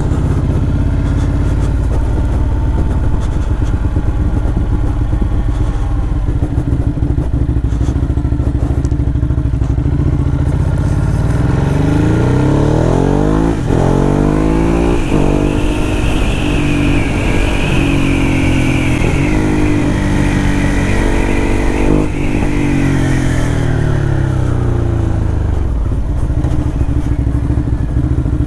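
Motorcycle engine running steadily, then accelerating through several gear changes a little before halfway, holding speed, and slowing again toward the end.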